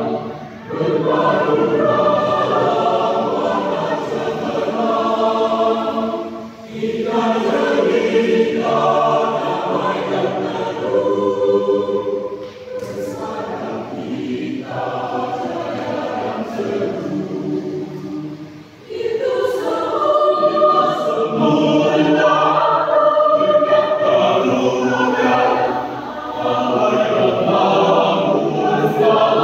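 Mixed choir of women's and men's voices singing a hymn in parts, phrase after phrase, with short breaks for breath between phrases.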